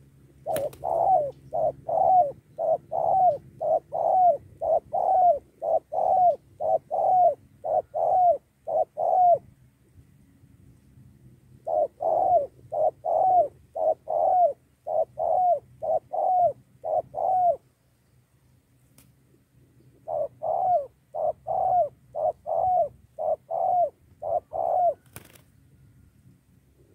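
Spotted dove cooing in three long bouts of rapid, repeated coo notes, about two a second, with short pauses between the bouts. A sharp click sounds about half a second in and another near the end.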